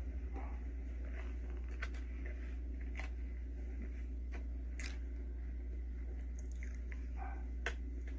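Close-up mouth sounds of someone eating cheesecake: soft, squishy chewing with scattered wet smacks and clicks, over a steady low hum.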